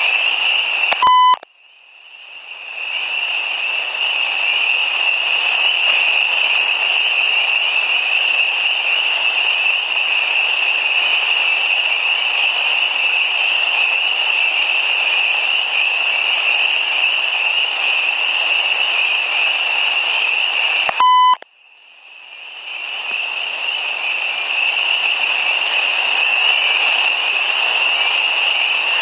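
Two short electronic beeps from a digital audio recorder, about twenty seconds apart, each the sound of a button on the recorder being pressed. After each beep the recording cuts out for a moment, then the background fades back in. Between the beeps there is a steady, high-pitched hiss of background noise.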